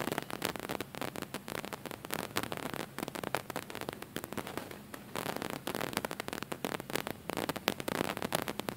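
Crackling static from a faulty audio recording: dense, irregular clicks many times a second with no steady tone.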